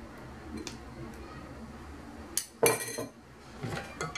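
A metal spoon clinking and scraping against a ceramic dish and a glass mixing bowl as yogurt is spooned into cake batter, with one louder ringing clink about two-thirds of the way through.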